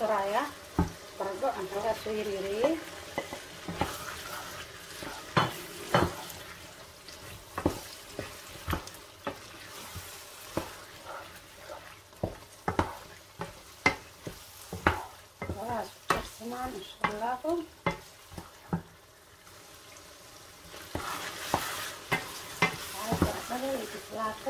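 Wooden spoon stirring a thick ground-meat sauce in a nonstick pot, knocking and scraping against the pot many times at an uneven pace, over the sizzle of the simmering sauce.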